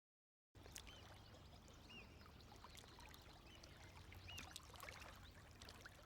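Faint water trickling and pouring, with small droplet plinks and bubbling chirps, starting about half a second in.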